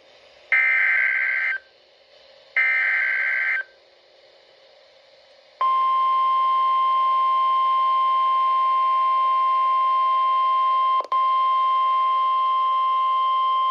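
Two one-second bursts of the NOAA Weather Radio SAME digital header, a buzzy data warble, are followed by the steady 1050 Hz warning alarm tone, which breaks for an instant about eleven seconds in. The alarm tone signals that a warning broadcast is about to follow.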